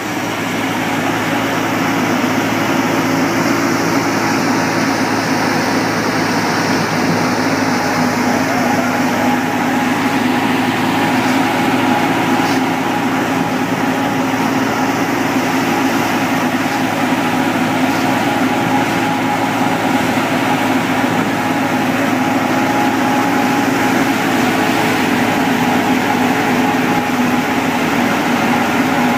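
Tractor-driven wheat thresher running steadily at working speed under a belt drive from the tractor, threshing wheat, with an even mechanical hum that holds without change.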